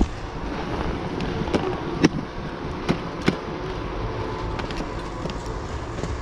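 Skis shuffling slowly through soft fresh snow, with a handful of sharp clicks and knocks of ski gear, the loudest about two seconds in, over a steady background hum.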